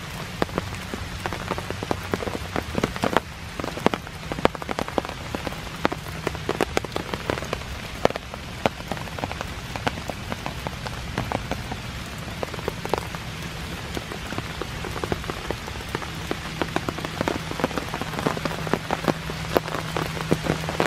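Steady rain falling, with many separate drops striking close by as sharp ticks over a continuous hiss.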